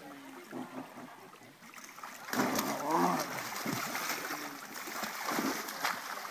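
Tiger cubs splashing as they wrestle in shallow water, with a louder stretch of splashing starting about two and a half seconds in.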